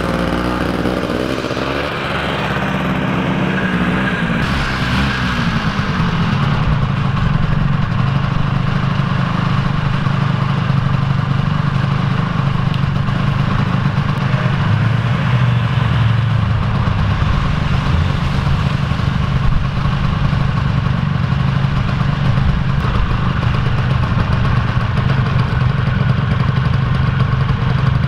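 Ski-Doo Tundra snowmobile engine starting up and revving unevenly for the first few seconds, then running steadily.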